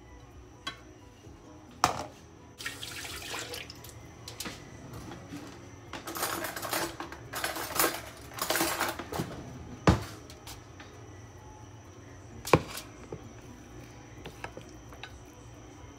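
Aluminium foil crinkling as it is handled and spread out, in several spells of rustling, with a few sharp knocks of dishes or utensils on the counter.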